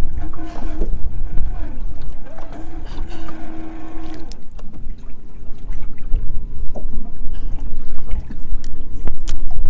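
Strong wind buffeting the microphone on an open fishing boat, a loud steady low rumble. A few faint drawn-out tones sit over it, one held steady for several seconds in the middle.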